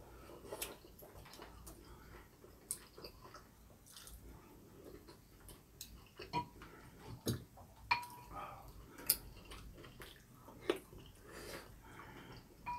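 Scattered light clicks and taps of a spoon and chopsticks against ceramic bowls during a meal, a few of them with a brief ring.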